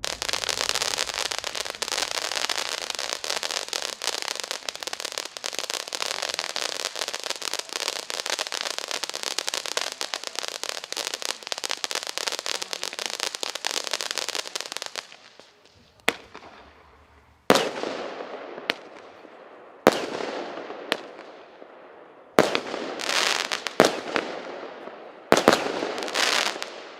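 Firework fountain spraying with a loud, steady, crackling hiss for about fifteen seconds. It dies away and the 0.8-inch six-shot battery fires: a series of sharp shots and bursts, each ringing out, a second or so apart.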